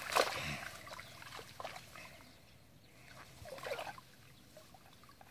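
Shallow muddy water splashing and sloshing in short bursts as a crocodile is held down in it. The loudest bursts come at the start and again between about three and a half and four seconds in.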